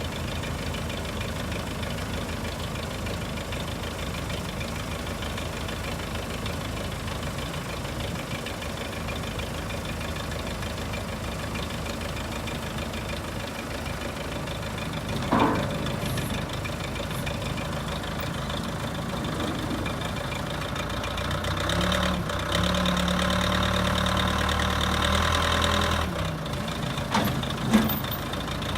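Backhoe's diesel engine idling, with a sharp clank about halfway through. About three quarters of the way in, the engine runs louder and steadier for a few seconds, then settles back, with another clank near the end.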